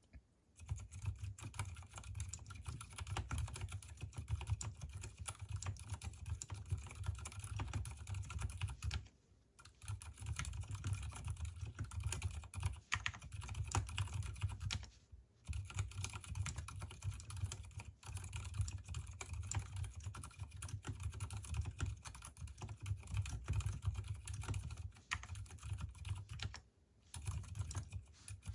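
Typing on an Mstone Groove T mechanical keyboard with silicone dampening and Gateron silent brown switches (switches unlubricated, stabilizers lubricated): a steady run of muted keystrokes, broken by short pauses about nine, fifteen and twenty-seven seconds in.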